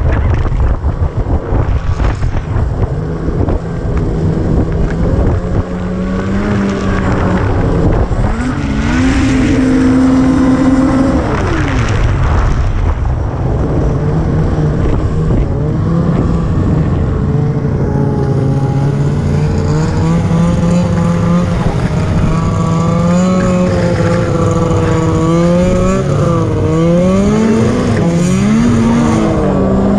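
Snowmobile engine running under load, its pitch rising and falling again and again as the throttle is opened and eased.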